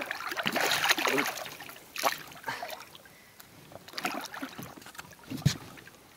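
Wels catfish thrashing in the water against the side of an inflatable boat as it is grabbed by hand to be landed: a burst of splashing in the first second, then a few single splashes and knocks.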